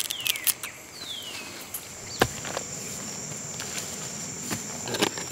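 A steady, high-pitched drone of field insects in a sugarcane field, with crackling crunches of raw sugarcane being bitten and chewed at the start, and a few sharp clicks later on.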